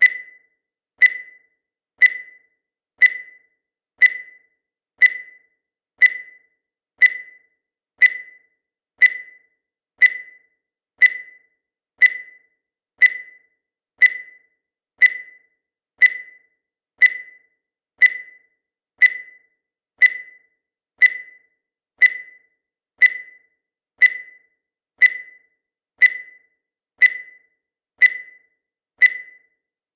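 Countdown timer sound effect: a short, high electronic beep once every second, each one dying away quickly, at an even pace.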